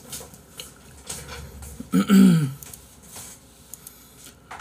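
A man's short vocal sound about two seconds in, falling in pitch, amid faint clicks and rustles.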